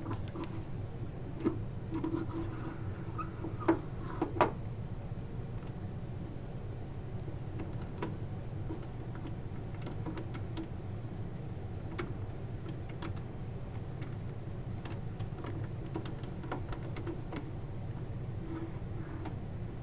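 Hand crank fitted into and turned on the side of an antique wind-up phonograph cabinet: scattered light clicks and scrapes, with a few sharper knocks in the first five seconds, over a steady low hum.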